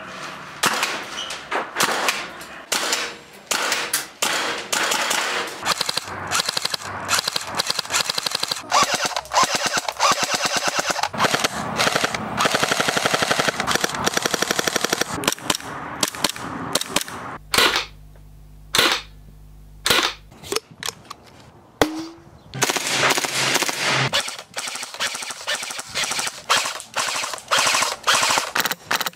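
Airsoft guns firing one after another, beginning with a VFC H&K 417 gas blowback rifle: single sharp shots mixed with fast full-auto bursts. The longest rapid burst comes about halfway through, followed by a few spaced single shots.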